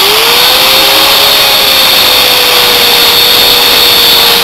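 Angle grinder with a cut-off disc cutting through a steel exhaust header pipe held in a bench vise. Its motor tone rises a little over the first second as it comes up to speed, then holds steady under the cutting hiss.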